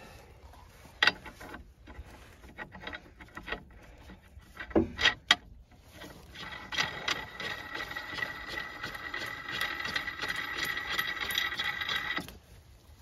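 A few sharp metal clinks, then a large nut spun by hand along the threaded rod of a hydraulic track pin press: a steady metallic whirring with fast, even ticks for about six seconds that stops suddenly near the end.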